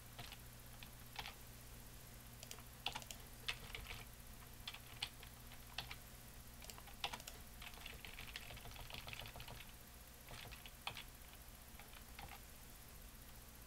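Faint, irregular keystrokes and clicks at a computer keyboard and mouse, about one or two a second, over a steady low hum.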